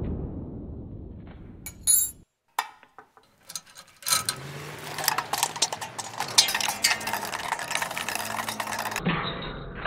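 A loud booming hit fades away over the first two seconds. A few isolated clicks follow, then from about four seconds in come rapid metallic clinks and rattles, as of small metal parts and wiring hardware being handled, lasting about five seconds.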